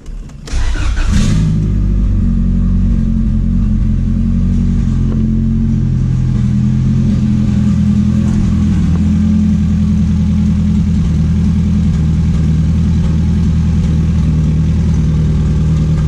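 Turbocharged Acura Integra four-cylinder with an open downpipe being started: it catches about a second in and settles into a steady idle. The idle carries a little popping, like a misfire, which the owner suspects comes from tightly gapped spark plugs, old cracked plug wires and oil in the spark plug holes.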